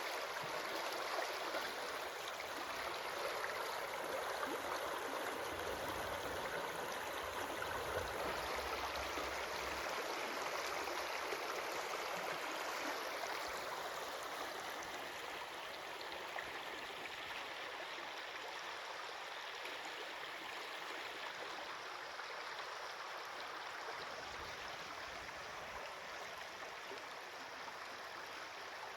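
Running water of a stream, a steady rushing that eases slightly over the second half.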